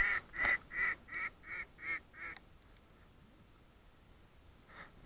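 A descending series of about seven mallard quacks, about three a second, each a little weaker than the last, over the first two and a half seconds; one faint quack follows near the end.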